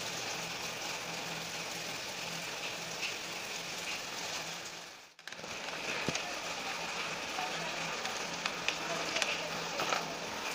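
Steady background hiss with a faint low hum. After the sound drops out briefly about halfway, a few small faint clicks come as a screwdriver turns the screws of a plastic multimeter case.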